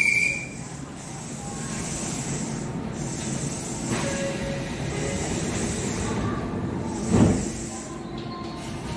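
Shin-Keisei 8800-series electric commuter train standing at the platform with a steady low hum, after a brief high brake squeal that cuts off as it comes to rest. About seven seconds in, its sliding doors close with a single loud thud.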